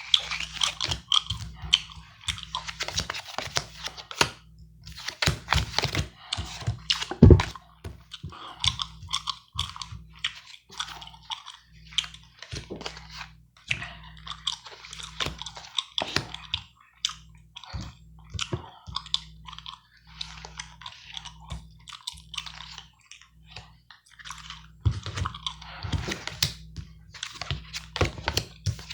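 Gum chewing close to the microphone: a steady run of wet clicks and smacks, with playing cards being handled. One loud thump comes about seven seconds in.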